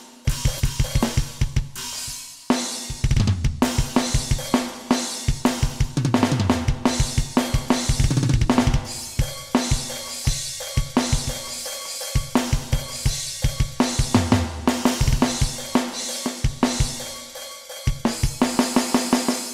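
Alesis Nitro Mesh electronic drum kit triggering custom drum samples, played in a modern-metal style: rapid double-kick runs under snare hits and cymbals, alternating with sparser groove passages.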